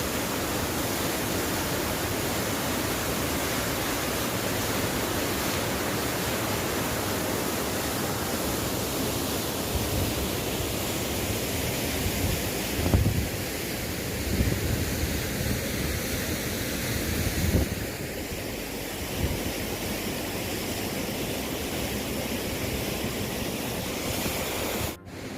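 Steady rushing roar of a full-flowing waterfall close by, with some low wind buffeting on the microphone in the middle.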